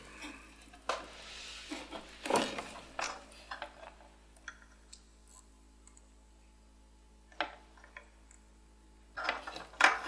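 Small clicks, taps and handling noises from a soldering iron, solder wire and a small circuit board on a wooden desk, with a soft hiss about a second in and a quiet stretch in the middle while a joint is soldered. A short clatter near the end as the board is picked up.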